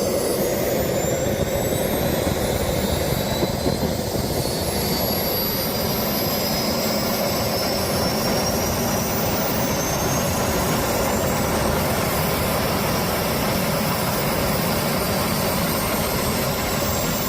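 Small jet engine running: a steady rush with a high turbine whine that climbs slowly in pitch over the first dozen seconds, then holds and eases slightly. It is a test run of an engine suspected of crash damage, and it runs.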